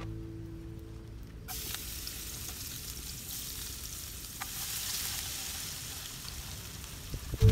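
Chopped garlic hitting hot oil in a frying pan and sizzling, the hiss starting suddenly about a second and a half in, then stirred with chopsticks.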